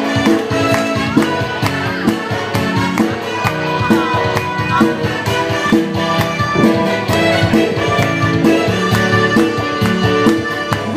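Instrumental break in a pop song: backing instruments playing held chords over a steady beat, with no singing.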